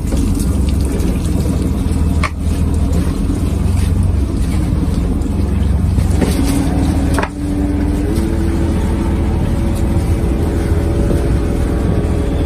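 Fishing boat's engine and deck machinery running steadily as scallop lantern nets are hauled out of the sea, with seawater pouring and dripping off the nets. A machine tone steps up in pitch from about six seconds in.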